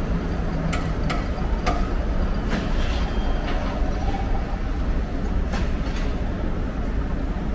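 Steady low rumble with sharp metallic clanks from a replenishment-at-sea highline rig hauling a cargo pallet into a carrier's hangar bay. The clanks come in a cluster over the first three seconds and twice more about six seconds in.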